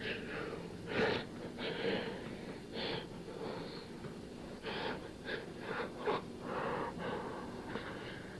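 A person breathing hard in irregular breathy gasps and wheezes, some short and some drawn out, over a low steady hum.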